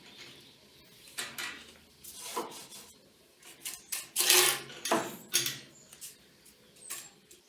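Metal parts of a drum sander being handled: a series of clinks, knocks and scrapes, the loudest a rasping scrape about four seconds in.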